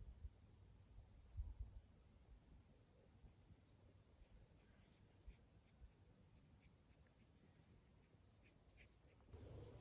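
Faint insect trilling, high-pitched, in long pulses about a second each with short gaps between them, alongside a few faint short chirps. The trilling stops shortly before the end, when a low rustling noise comes in.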